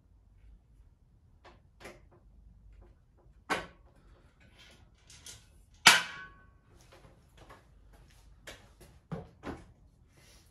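Scattered knocks and clicks from handling parts and tools on a motorcycle. The two loudest come about three and a half and six seconds in, and the second is a sharp clack with a brief ring after it.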